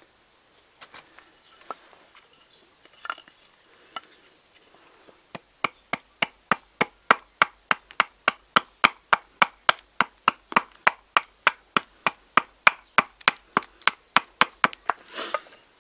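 Axe chopping into a seasoned alder spoon blank on a wooden block. A few scattered knocks come first, then about five seconds in a fast, even run of short, sharp strikes, roughly three to four a second, that lasts about ten seconds. The wood is bone dry, so each stroke lands hard.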